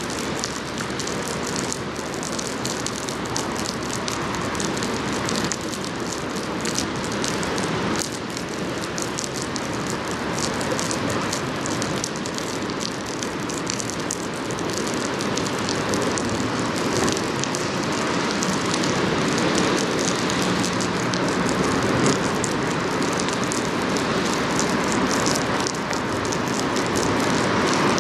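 Bulk carrier passing close by: a steady rushing of its bow wave and a low engine rumble, growing slowly louder as the ship comes abreast, over a crackling hiss of rain.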